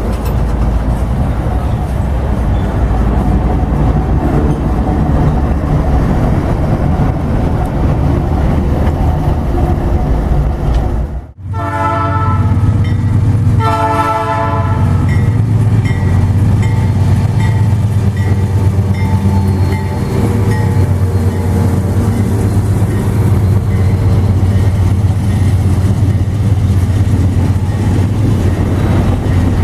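Freight train passing with a loud steady rumble. After a brief sudden break about eleven seconds in, a diesel locomotive's air horn sounds two blasts, followed by the locomotive's low engine drone and faint regular wheel clicks on the rails.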